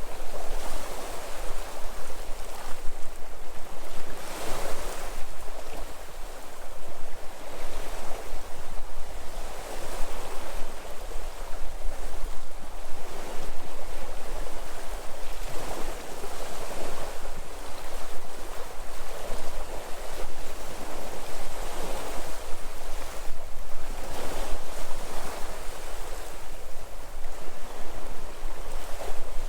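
Sea waves washing onto the shore in a steady, continuous surf, swelling and easing every few seconds.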